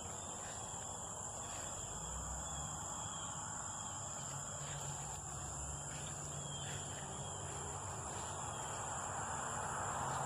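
Steady high-pitched drone of insects, with a few short chirps over a low steady hum. A broad rush of noise swells near the end.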